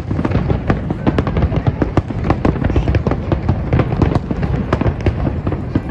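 Fireworks display: a dense, rapid barrage of bangs and crackles, many per second, over a continuous low rumble.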